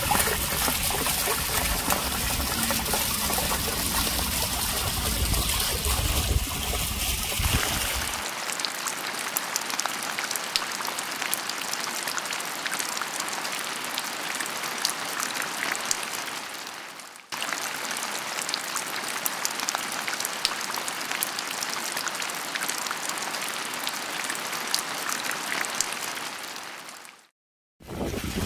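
Water streaming and trickling over rock, a steady rushing hiss. A deeper rumble underlies it for the first eight seconds, then it cuts abruptly to a thinner, hissier flow. The flow fades out and restarts about midway, then fades away just before the end.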